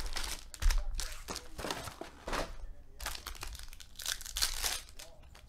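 Foil wrappers of Panini Prizm football card packs crinkling and tearing as the packs are ripped open, in irregular rustling bursts with a brief pause about halfway through.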